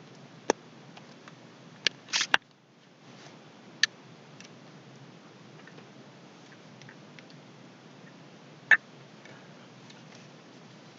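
Computer mouse clicking: about five sharp, irregularly spaced clicks over faint background hiss, including a quick double click about two seconds in.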